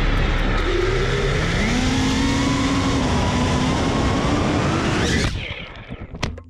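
5-inch FPV racing quad with T-Motor Pacer 1950KV brushless motors diving at speed: the motors whine at gliding, rising and falling pitch over heavy wind rush. About five seconds in the sound drops away as the quad crashes, and a few sharp knocks follow as it tumbles.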